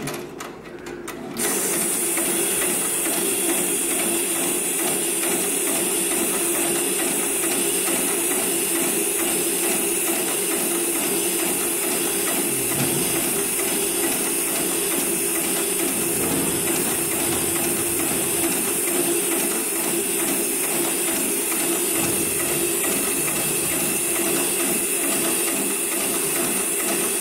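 Industrial programmable rope-sewing machine (733PLC/R) running a stitching cycle on a thick rope: a fast, steady mechanical chatter with a constant air hiss. It starts suddenly about a second and a half in.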